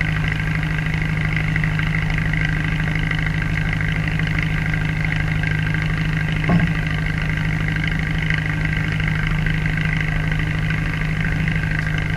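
Boat engine running steadily at idle: an even, unbroken drone. One brief knock comes about six and a half seconds in.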